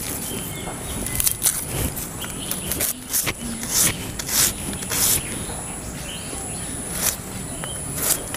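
A red onion being peeled and sliced on a boti, a fixed curved iron blade: irregular crisp crackles and snaps of papery skin and onion flesh under the blade. Insects chirr steadily and high in the background.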